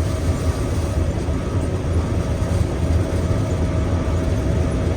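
Gleaner M2 combine running steadily while harvesting soybeans: a constant low engine and machinery drone.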